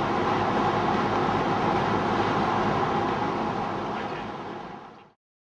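Car driving along a road, its steady road and engine noise heard from inside the cabin, fading out about four seconds in and cutting off shortly after.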